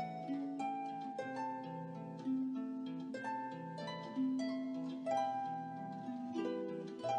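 Background music: a slow melody of plucked strings, harp-like, a new note or chord about once a second, each ringing on.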